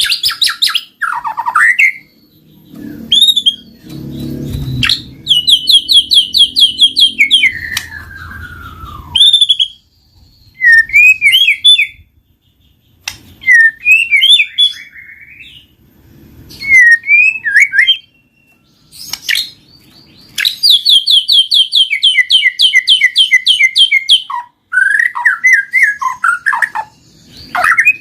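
White-rumped shama (murai batu) singing in separate phrases: sweeping whistled notes alternate with long, fast trills of repeated notes, broken by short pauses.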